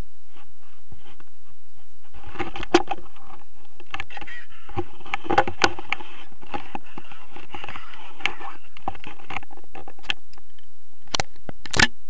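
Rustling and clicking of paragliding harness, buckles and lines being handled close to a helmet or handheld camera, with a cluster of sharp clicks near the end.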